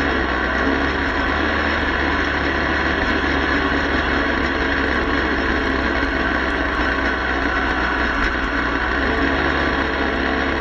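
Motorcycle engine running steadily at cruising speed, with constant wind and road rumble on the bike-mounted action camera's microphone.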